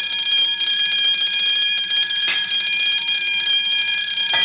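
Electric alarm bell ringing continuously, a steady, high, metallic ring. One sharp knock sounds about two seconds in.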